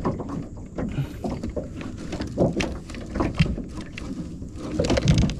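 Irregular knocks and clatter of fishing gear being handled aboard a boat while tackle is searched for a worm rig, over a steady low rumble.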